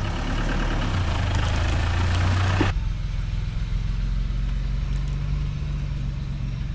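Off-road 4x4 engines running: first a Land Rover Discovery driving along the track, then, after a sudden change about two and a half seconds in, a Mitsubishi Pajero's 3.0 V6 running steadily at low revs.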